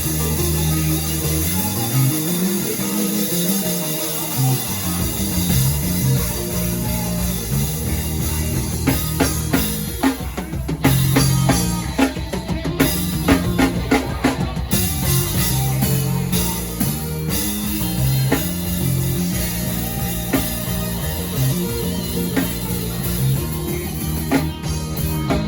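Live worship band playing instrumentally: drum kit and guitar over sustained keyboard and bass. The bass drops out for a couple of seconds near the start, and the drums play a busy fill around the middle.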